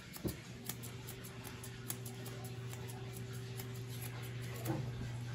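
Grooming shears snipping through a Portuguese Water Dog's curly coat, a quick run of sharp metallic clicks about three or four a second. A steady low hum comes in about half a second in.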